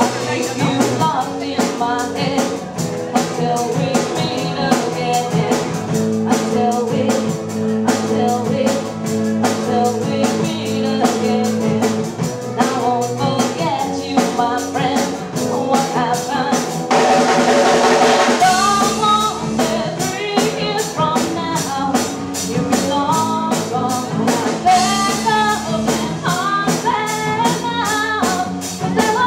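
Live rock band playing a song: a woman sings lead over acoustic and electric guitars, bass guitar and a drum kit keeping a steady beat. A little past the middle a louder cymbal wash swells up for a second or so before the song carries on.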